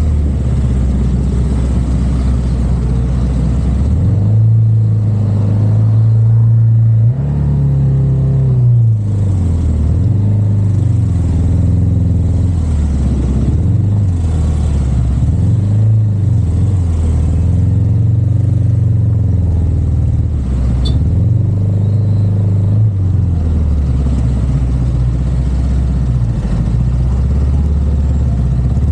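Car driving, with a low engine drone whose pitch steps up and down as the car speeds up and slows, over road noise.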